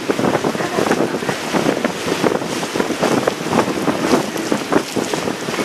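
Sightseeing boat under way: water rushing and splashing along the hull, with wind buffeting the microphone in an uneven, gusty rush.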